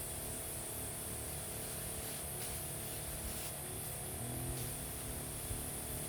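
Small engine running steadily at an even speed, with a constant hiss: typical of a motorized crop sprayer at work.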